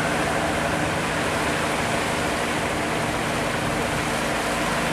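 Steady rush of turbulent water at a sluice gate as a small steel boat pushes upstream through it. The boat's engine drones underneath.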